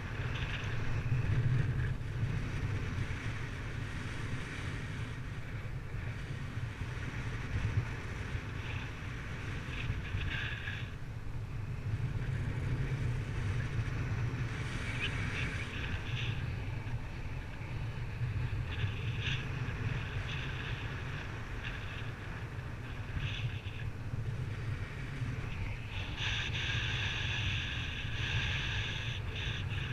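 Wind buffeting the microphone in flight: a steady low rumble with rushing hiss that swells now and then, strongest near the end.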